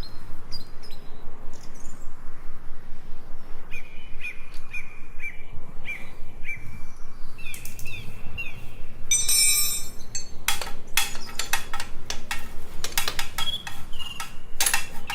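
Small birds chirping, short repeated chirps about twice a second, over a low steady hum. In the second half a rapid run of sharp clicks and clinks takes over.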